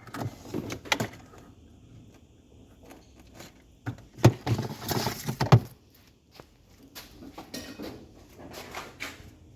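Clicks, knocks and rattles of refrigerator parts being handled as the defective drain heater plate is worked off the evaporator, with a louder scraping, knocking stretch about four to five and a half seconds in.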